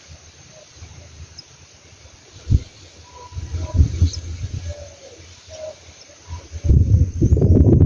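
A dove cooing, a few short low hoots in the middle. A few low thumps come before it, and a loud low rumbling noise takes over near the end.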